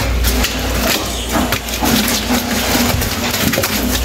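Cloth being rubbed and scrubbed over the wet plastic liner and frosted walls of a defrosted chest freezer, in irregular rubbing and scraping strokes.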